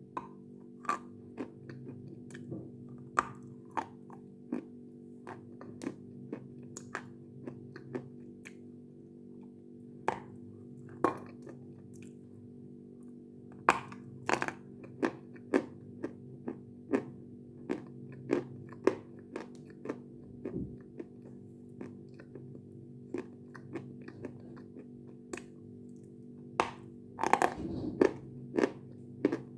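Crisp crunches of a person biting and chewing lumps of natural Khrapovsky chalk close to the microphone, about one sharp snap a second with a denser run of crunches near the end.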